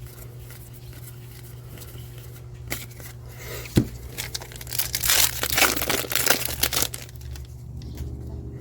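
Foil booster pack wrapper being torn open and crinkled: a sharp click a little under four seconds in, then about two seconds of tearing and crinkling.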